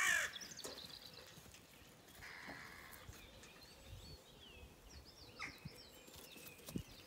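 A crow caws once right at the start. After that come faint, scattered chirps of small birds over a quiet background.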